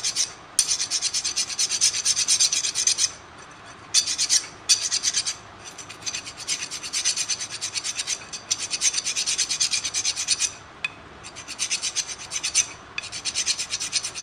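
A flat file scraping quickly back and forth over the magnet rotor of a cooler water pump's impeller, in runs of fast strokes with short pauses between. It is cleaning off the dirt and scale that had built up on the magnet and stopped the impeller from turning.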